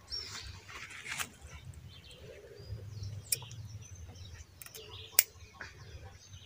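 Garden scissors snipping okra pods off the plant: a few sharp clicks a couple of seconds apart, the last the loudest. Faint bird chirps come through behind them.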